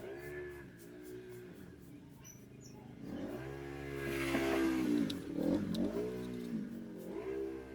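A motor vehicle's engine, its pitch rising and falling several times, loudest around the middle.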